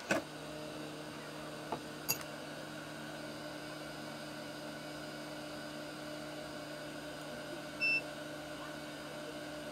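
Hot air rework station's blower running with a steady hum, set to low heat to soften the resin around a component; it starts with a click and stops at the end. A few light clicks come about two seconds in, and a short electronic beep near the end.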